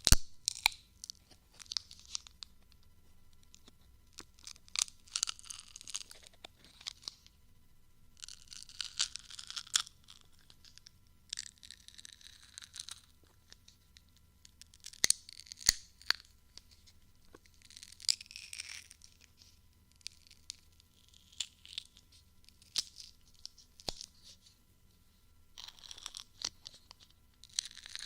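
Ear-cleaning tools scratching and crackling in short bursts every second or two, with quiet gaps between and a couple of sharp clicks about halfway through.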